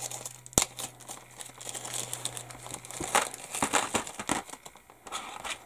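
A small clear plastic zip-lock bag crinkling and rustling as it is opened and handled, with irregular small clicks and one sharp snap about half a second in.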